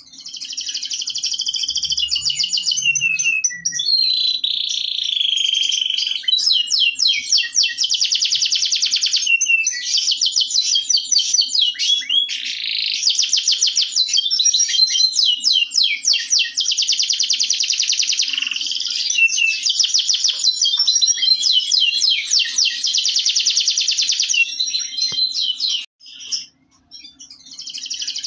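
Domestic canary of the Indonesian local type (kenari lokal) singing a long, nearly continuous song of rapid trills and fast repeated notes, broken by short pauses and one brief break near the end.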